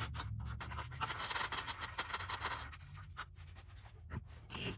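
Hand ratchet clicking rapidly as a rock rail mounting bolt is backed out, the clicking thinning to scattered clicks and knocks after about three seconds.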